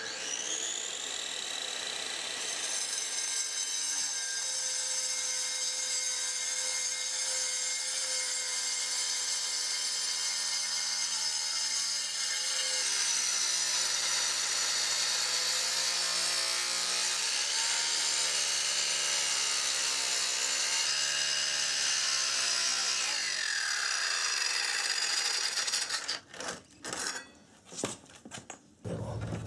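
Skil circular saw with a diamond blade cutting a straight line through a granite countertop slab. The motor spins up at the start, runs steadily through the stone for over twenty seconds, then winds down, followed by a few short knocks near the end.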